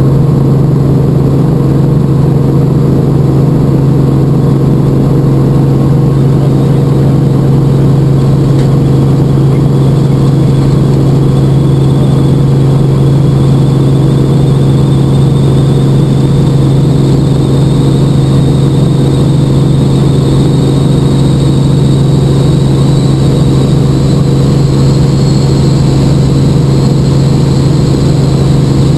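Helicopter engine and rotor noise heard from inside the cabin during lift-off and climb: a loud, steady low hum with a faint high whine creeping slowly upward in pitch.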